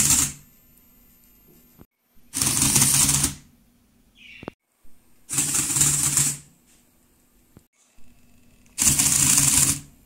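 Lego Mindstorms EV3 Rubik's Cube solving robot turning the cube's faces in rapid clattering bursts, each solve lasting about a second. One solve ends at the start, and three more follow about 2, 5 and 9 seconds in, with a faint steady hum between them.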